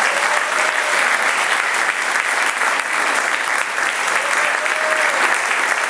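Concert audience applauding, a steady dense clapping.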